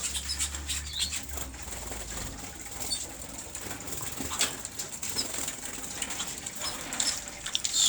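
Canaries moving about in their cages: wing flutters, hops and scattered clicks, with a few short high chirps.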